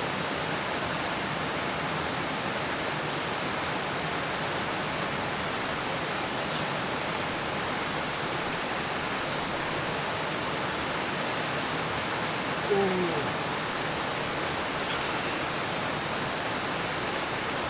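Steady rushing of a rocky stream tumbling over stones, an even hiss. About two-thirds of the way through comes one short vocal sound that falls in pitch.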